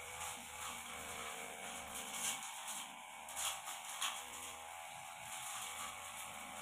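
Backpack brush cutter running steadily, its long Tanika blade swishing through light grass and undergrowth, with a few sharper strikes about two, three and a half and four seconds in.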